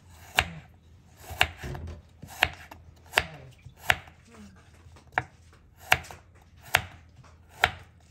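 Kitchen knife slicing green vegetable stalks on a wooden cutting board. There are nine cuts at a slow, even pace, each ending in a sharp knock of the blade on the board.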